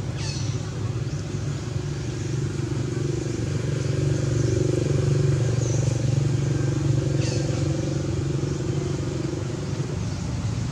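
An engine running steadily off-screen, a low even hum that grows a little louder in the middle.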